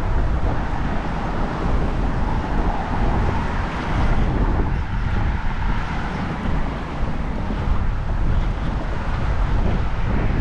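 Wind buffeting the microphone: a steady rushing noise with a heavy, uneven low rumble.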